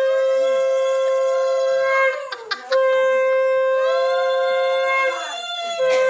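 Conch shell (shankha) blown in long, steady blasts. One note is held about two seconds, then comes a brief break. A second note is held about two and a half seconds, and a third begins near the end.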